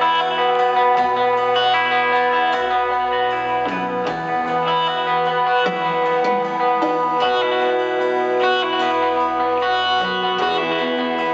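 Live rock band music led by electric guitar: ringing, held chords over low notes that change every second or two.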